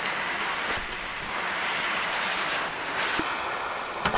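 Heavy rain pouring steadily onto pavement and grass. Its sound shifts a little after three seconds in, and there is a sharp tap near the end.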